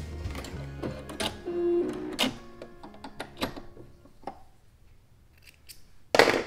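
Baby Lock sewing machine finishing a straight top stitch with a steady low hum, then stopping about two seconds in. A few sharp clicks follow as the presser foot is raised and the fabric is handled, and a loud brief rustle comes near the end as the fabric is pulled away.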